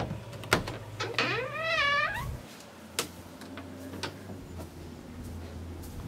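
A single drawn-out, pitched call about a second long, rising and then wavering. Several sharp clicks and knocks come before and after it.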